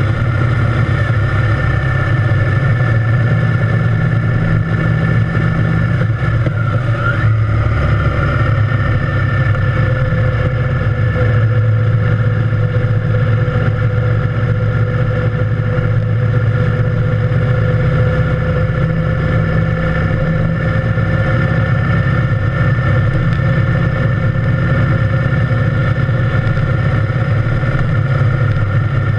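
Triumph Thunderbird Storm's parallel-twin engine running steadily at cruising speed, its pitch holding nearly even.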